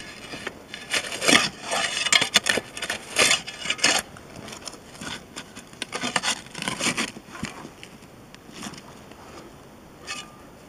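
Small shovel scraping and scooping into dry soil, gritty strokes of metal against earth and roots in two runs of several scrapes.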